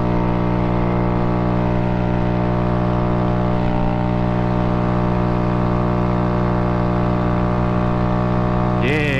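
Honda Grom's small single-cylinder four-stroke engine running at full throttle on a slight uphill, holding one steady pitch with no rise or fall.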